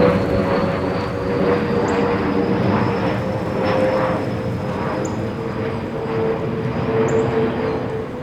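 Airbus A320 flying past, a steady whistling whine from the wing's fuel over-pressure protector (FOPP) cavities over the jet engine noise, with a fainter high tone that slowly rises and falls. The sound eases off slightly near the end.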